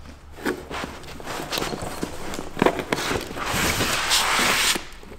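Cardboard box being handled and pulled out of a larger cardboard carton: scattered knocks and rustles, then a louder scraping rub of cardboard sliding against cardboard for about a second and a half near the end, stopping suddenly.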